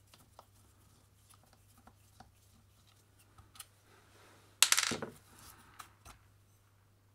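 Small clicks and knocks of hands working on a rotary hammer's motor housing, then a loud metallic clatter about four and a half seconds in as a screwdriver and screw are set down on the workbench, followed by a few lighter knocks.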